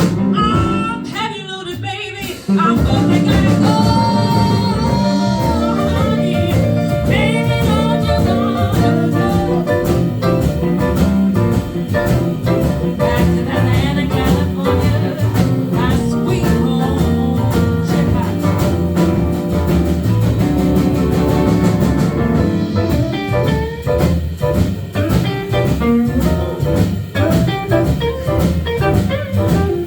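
Live jazz-blues band playing a slow blues, with a singer's voice over the band. The full band comes in loudly about two and a half seconds in.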